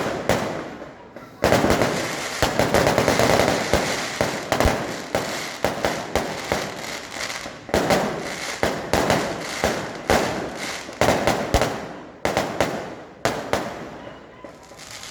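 Aerial fireworks and firecrackers exploding in repeated volleys of sharp bangs and crackles, each volley dying away before the next. There is a short lull about a second in and another near the end.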